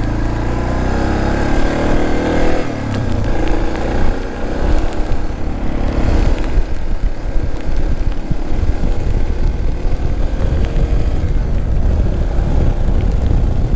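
Suzuki DR650's single-cylinder four-stroke engine under way, rising in pitch as the bike accelerates over the first couple of seconds, then running on at speed under uneven rushing noise.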